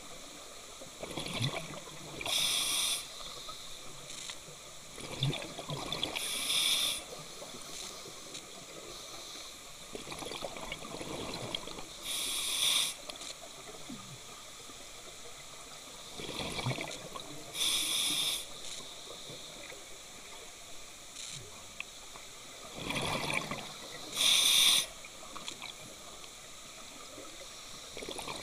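Scuba diver breathing through a regulator underwater: a repeating cycle of hissing breaths and bubbling exhalations, about five breaths spaced some five seconds apart.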